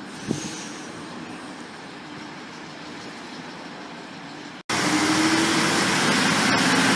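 Train noise at a station platform: a quieter steady rumble with one short knock, then an abrupt cut to louder sound of an electric suburban train at the platform, its steady hum rising slightly in pitch as it gets ready to depart.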